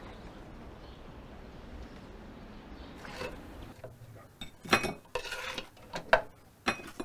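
A faint, steady outdoor background, then kitchen clatter over the last few seconds: about five sharp knocks and clinks of dishes and utensils.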